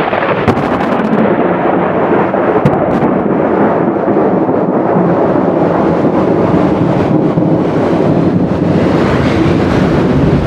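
Long, loud rolling rumble of thunder over steady rain, with a few sharp crackles in the first few seconds; it cuts off abruptly at the end.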